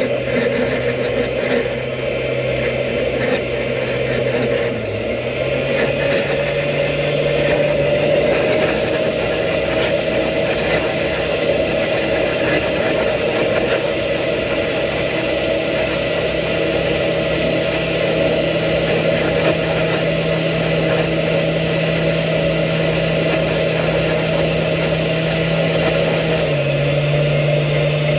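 Electric blender running steadily, its motor hum stepping up slightly in pitch about five seconds in.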